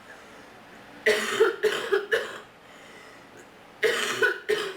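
A person coughing in two fits: a run of about four coughs about a second in, then about three more near the end.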